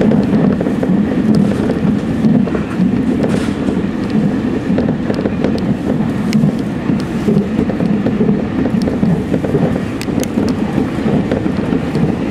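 Electric commuter train running at speed, heard from inside the front car: a steady rumble of wheels on rail, with scattered sharp clicks.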